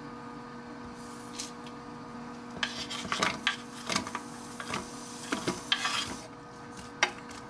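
Spatula scraping and tapping chopped onions off a wooden cutting board into a frying pan: a run of scrapes, knocks and taps starting a couple of seconds in, over a steady low hum.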